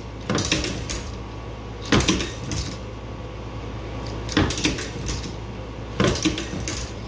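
Cook's Cat Claw bandsaw blade setter worked by its hand lever: four metallic clacks and rattles about two seconds apart, each stroke stepping the steel blade on and setting a tooth.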